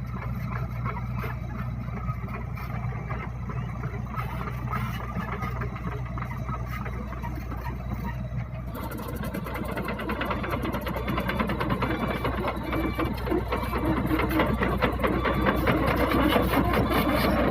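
Heavy-equipment diesel engine running steadily, from an excavator or bulldozer. About halfway through the sound suddenly gets louder and busier with a dense mechanical rattle, and it keeps building toward the end.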